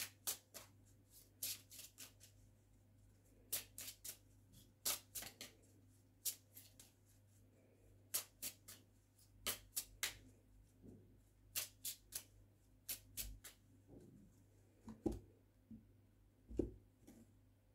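Lenormand oracle cards being drawn one by one off the deck and laid down: a long irregular string of faint, sharp card snaps and flicks, with a few soft thuds on the tabletop near the end.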